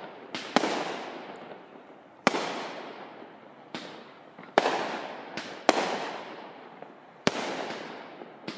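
Fireworks bursting in the sky: a series of sharp bangs, about one every second or two, some louder and some fainter, each trailing off in a long fading echo.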